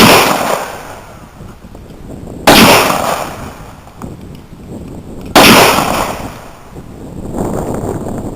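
Three gunshots fired a few seconds apart, each a sharp crack followed by a long rumbling echo.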